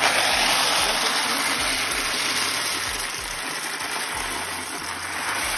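Dry elbow macaroni poured from its box into a pot of hot chicken broth: a steady rushing that starts suddenly and slowly eases off.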